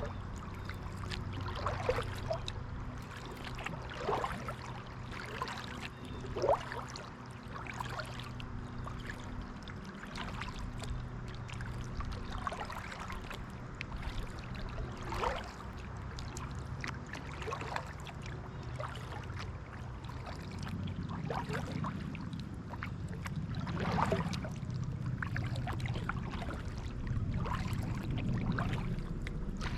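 Kayak paddle dipping into pond water in repeated strokes, roughly every two seconds, with water splashing and dripping off the blades.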